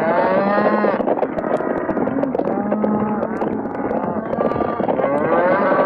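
Cattle stampede sound effect: many cattle bellowing and lowing over one another above a continuous rumble of the running herd.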